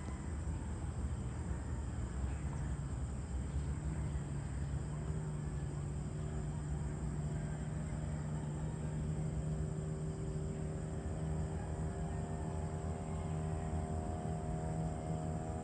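Steady low rumble of distant traffic, with an engine's steady hum setting in a few seconds in and growing fuller in its upper tones toward the end.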